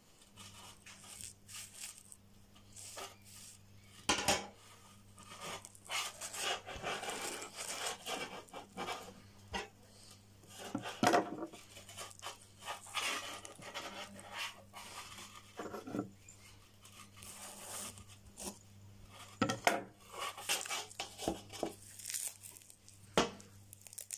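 A singed trotter being scraped and rubbed clean over an aluminium basin, with irregular rasping scrapes and short knocks against the metal. A faint steady electrical hum runs underneath.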